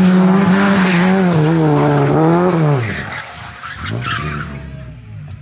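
Rally car engine held at high revs for a few seconds, then its pitch drops sharply as the throttle comes off. After that, short blips of revs and tyres skidding as the car slides through a corner.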